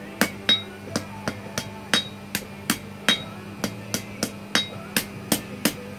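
Hand hammer striking hot steel on an anvil, about three blows a second, some blows leaving a brief high ring from the anvil. The smith is forging a knife, rounding off the corners of the handle.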